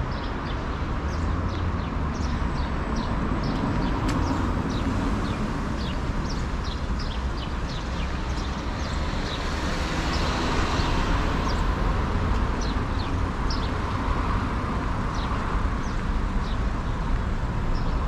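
Steady city street traffic: car engines and tyres on the road, with one vehicle passing louder about ten seconds in. Small birds chirp in short high notes throughout.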